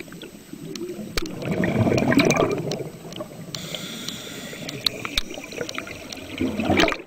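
Underwater bubbling water sound effect with scattered small pops, swelling to its loudest about two seconds in and cutting off abruptly at the end.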